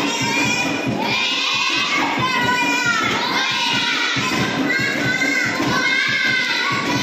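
Group of children singing a traditional dance song together, voices gliding and holding notes, over a steady low rhythmic pulse.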